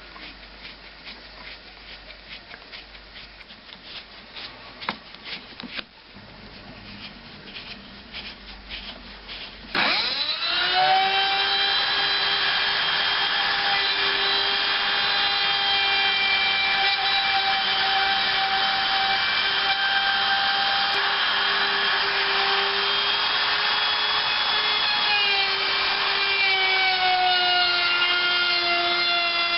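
Light clicks and knocks of a router bit and jig being handled, then about ten seconds in an electric router spins up with a rising whine and runs steadily, its pitch shifting a little near the end as it cuts the recess for the resonator cone into the wooden guitar body.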